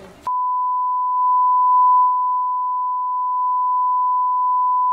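A long, steady beep at about 1 kHz, a censor bleep laid over the argument footage, cutting in just after a brief snatch of voices at the start.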